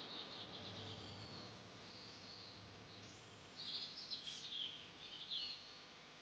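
Small birds chirping and twittering, faint at first, then a cluster of quick, louder calls a little past the middle.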